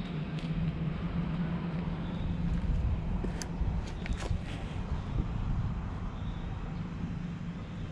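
Steady low outdoor rumble with a constant hum, and a few light clicks or taps about halfway through.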